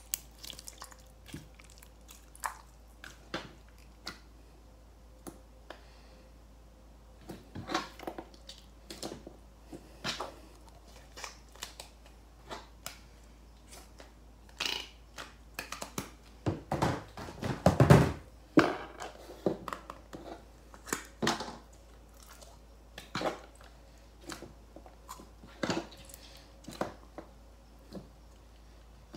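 Slime being handled, making irregular sticky clicks and pops as it is pressed and pulled, with a louder, longer run of squishing about two-thirds of the way through.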